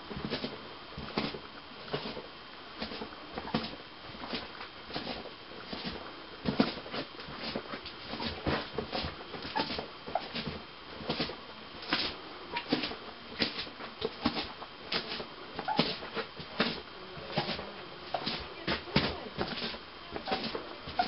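Footsteps crunching on loose gypsum rubble, an uneven run of sharp steps.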